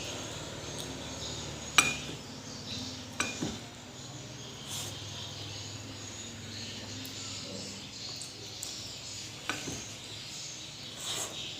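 Tableware clinking: two sharp clinks with a brief ring about a second and a half apart near the start, then a few fainter taps, over a low steady hum.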